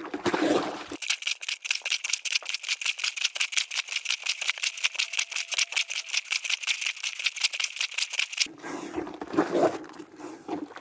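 Breathing Mobile Washer, a plunger-style hand washer, pumped rapidly up and down in a bucket of diapers and rinse water: a fast, even rhythm of sloshing strokes, several a second. It is rinsing the last of the soap suds out of the diapers.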